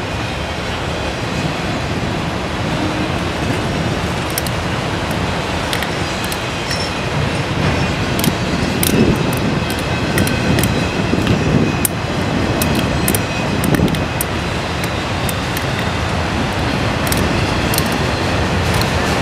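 Norfolk Southern freight train rolling past, its autorack cars and boxcars making a steady rumble on the rails. Scattered sharp clicks sound through it, more of them in the second half.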